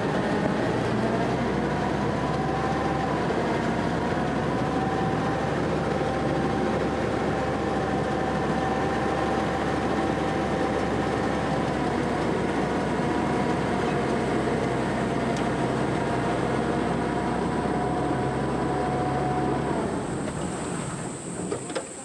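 Engine of an army duck (WWII DUKW amphibious truck) running steadily as it cruises on water: a constant drone with a few steady tones. Near the end the engine eases off and gets quieter, and a high, steady insect buzz comes in.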